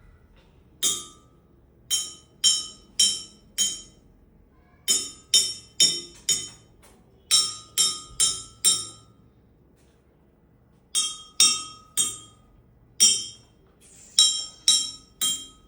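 Sharp ringing clinks of a hard object being struck, tapped out in quick rhythmic groups of one to six with short pauses between. Each strike rings briefly at the same few pitches.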